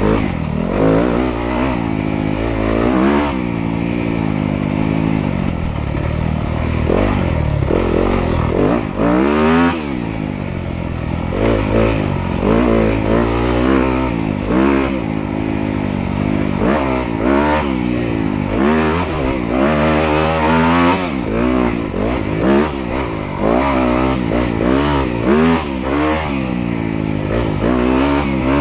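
Dirt bike engine ridden under constantly changing throttle, its pitch climbing and dropping every second or two as it revs up and backs off.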